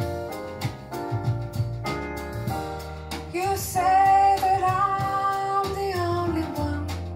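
Recorded music playing through a hi-fi system with NAT Se1 single-ended tube monoblock amplifiers and Audiovector R1 Arrete speakers: piano chords, then a long held melody note comes in about halfway through.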